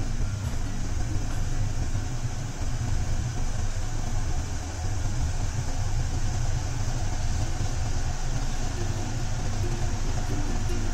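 Beetroot juice boiling in a saucepan over a gas burner: steady bubbling and burner noise with a strong low rumble, as the juice reduces and thickens.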